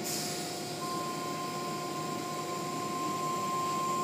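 Automatic car wash tunnel machinery running steadily, a hiss of spray and motor noise heard through the viewing-window glass, with a steady whine joining about a second in.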